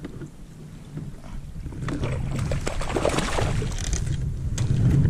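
Wind rumbling on the microphone. About two seconds in, a burst of noisy rustle and fine crackles joins it for a couple of seconds.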